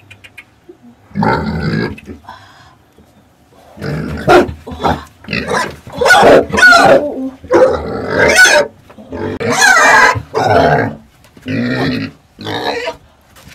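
Young pig squealing and grunting while it is grabbed and held, an alarm at being handled. One call comes about a second in, then a loud, almost unbroken run of squeals from about four seconds in.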